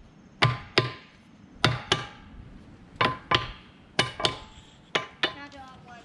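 Hammer striking the bolts on the steel rear rim of a 1952 John Deere Model A to knock them loose: sharp ringing metal-on-metal blows, coming in quick pairs about five times.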